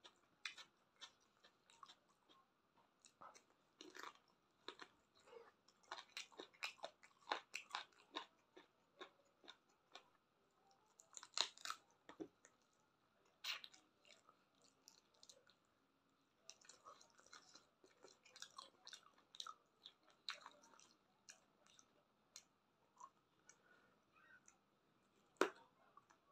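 Quiet chewing and biting of cooked chicken feet: irregular wet mouth clicks and crunches, with a louder crunch about eleven seconds in and a sharp one near the end.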